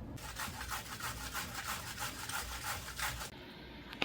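Rapid rhythmic rasping, about five short strokes a second, stopping a little after three seconds in.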